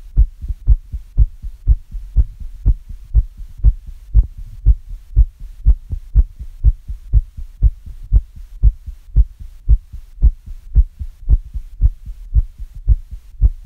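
A human heartbeat, a little fast, with low thumps at about two a second.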